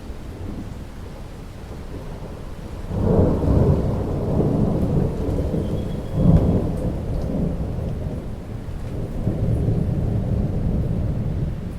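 Rain falling steadily with a long roll of thunder. The thunder builds about three seconds in, peaks in a sharper clap around the middle, and rumbles on until near the end.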